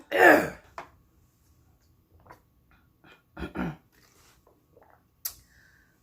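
A woman's wordless groans and breaths as she recovers from nearly choking on lime and salt. A loud groan falls in pitch at the start, a shorter one comes about three and a half seconds in, and faint mouth clicks and a sharp breath fall between them.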